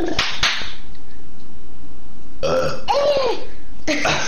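A person burping loudly about two and a half seconds in.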